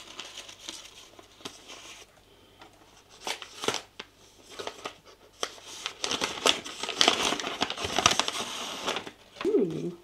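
A wrapped book being unwrapped by hand: the wrapping crinkles, crumples and tears in irregular rustles, busiest and loudest in the last few seconds.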